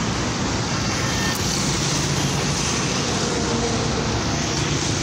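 Steady city road traffic: cars and motorcycles passing continuously, their engines and tyres blending into a constant hum.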